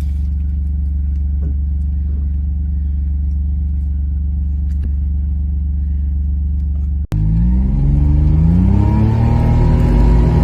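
Car engine running at a steady note; after a brief cut about seven seconds in, it accelerates, its pitch rising for a couple of seconds before levelling off.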